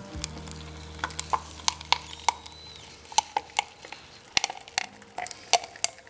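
Ground pork being pressed from a cast-iron sausage stuffer into a casing while hands handle it, giving irregular small wet clicks and crackles. A low steady hum runs under the first two seconds or so.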